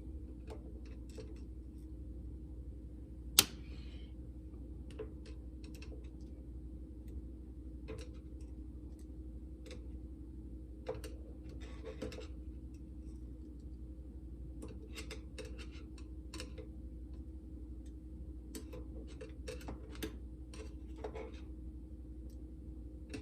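Light metallic clicks of small steel ball bearings and hub parts being handled while a bicycle hub is taken apart and the bearings are picked out with a magnet. The clicks are scattered and irregular, with one sharper click about three seconds in, over a steady low hum.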